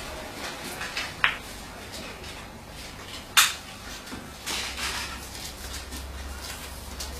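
Snooker balls clicking as they are handled and set down on the table: two sharp clicks, the second louder, among softer taps.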